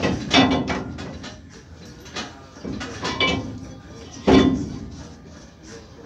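Metal clanks and knocks from a heavy truck brake drum and wheel hub being worked onto its axle, four or five sharp strikes each ringing briefly.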